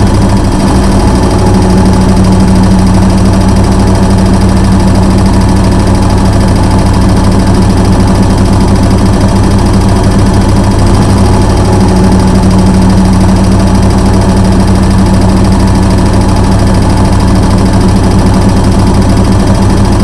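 Washing machine running with a loud, steady humming drone; the hum swells slightly a couple of seconds in and again just past the middle.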